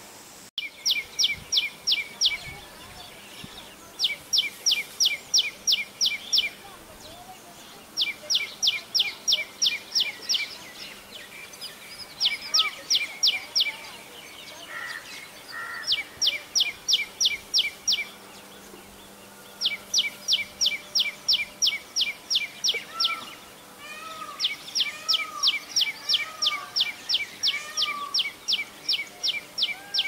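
Common tailorbird calling loudly: bouts of sharp, rapidly repeated high notes, about five a second for two seconds or so, given seven times with short pauses between.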